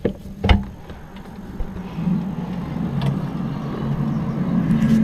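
A few sharp clicks and knocks as a window is opened, then from about two seconds in a low droning hum sets in outside and grows steadily louder. It is one of the unexplained "strange noises" the listener has been hearing.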